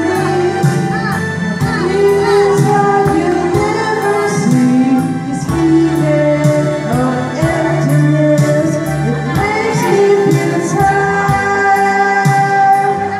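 A song playing, with a woman's singing voice holding long wavering notes over instruments and a steady beat.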